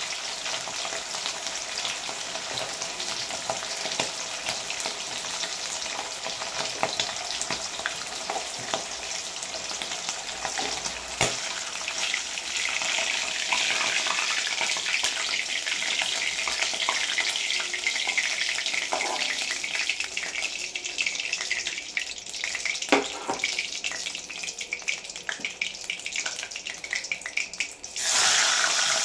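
Hilsa fish shallow-frying in hot oil in a kadai: a steady crackling sizzle with a few knocks of a metal spatula against the pan. Near the end the sizzle suddenly grows louder as another piece of fish goes into the oil.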